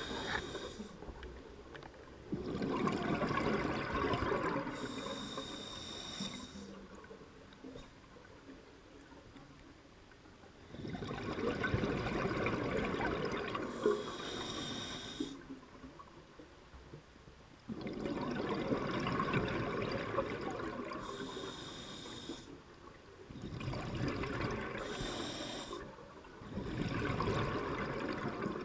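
Scuba regulator breathing underwater: slow breaths, each a short high hiss with a thin whistle on the inhale and a long bubbling rush of exhaled air, repeating every several seconds.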